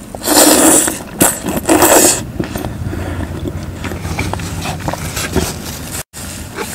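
Close-miked, juicy crunching of iced watermelon being bitten and chewed: two loud, wet crunchy bursts in the first two seconds, then quieter steady chewing. The sound cuts out for an instant near the end.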